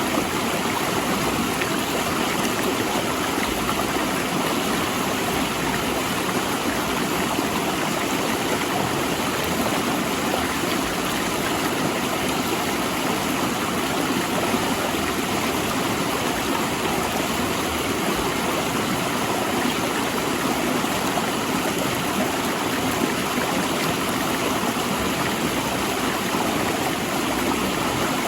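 Mountain river rushing steadily over and between large rocks.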